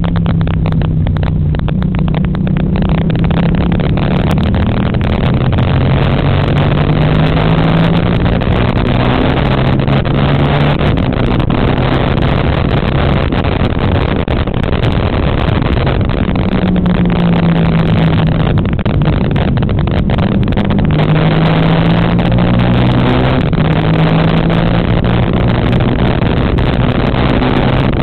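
A motor engine running continuously, its pitch slowly rising and falling as the speed changes, over a steady rushing of wind and travel noise.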